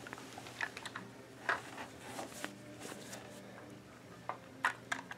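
Faint, scattered small clicks and rustles from hands and a two-probe Nervoscope being handled against a bare back, over a faint low hum.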